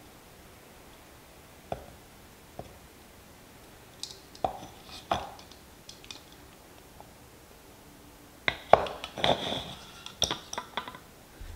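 Handling clatter of an ultralight cook pot with a metal 3D-printed heat-exchanger base and a folding wire handle: scattered light clicks and clinks, then a busier run of metallic clinks and rattling near the end.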